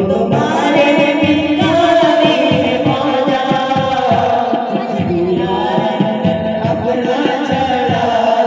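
Group of male voices singing a qawwali together into microphones.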